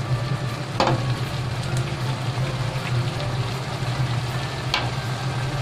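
Chopped tomatoes and onion sizzling and bubbling in oil in a nonstick wok, a steady hiss over a steady low hum, with two sharp clicks, about a second in and near the end.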